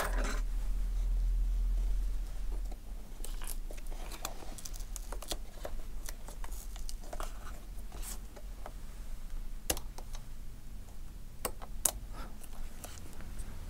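Sparse small clicks and taps of tweezers and fingers working at a laptop's WLAN card, unplugging the two tiny antenna connectors. A low hum sounds for the first two seconds or so.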